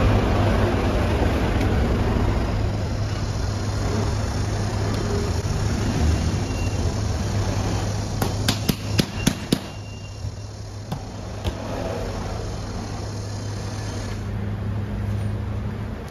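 Steady low machine hum and rushing noise in a bakery kitchen while a large mass of dough is kneaded by hand on a stainless steel worktable. A quick run of about six sharp clicks comes a little past the middle.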